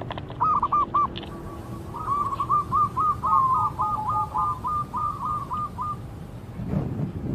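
Zebra dove (perkutut) cooing: a short stuttering burst of notes, then a long, even series of clipped coos at about three to four a second. A low rumble near the end.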